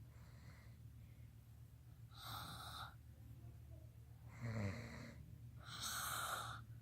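Snoring sounds: a faint breathy snore, then three louder rasping snores about every one and a half to two seconds. The middle snore is the loudest and has a low rattle in it.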